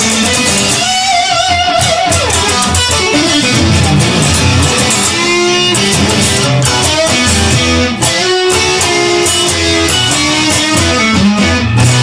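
Music led by electric guitar: a lead line with bent, wavering notes over a low bass part and drums.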